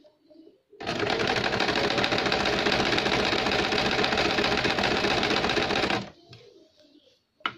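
A domestic sewing machine running steadily as it stitches a line through brocade fabric. It starts about a second in, runs for about five seconds and stops abruptly. A single sharp click follows near the end.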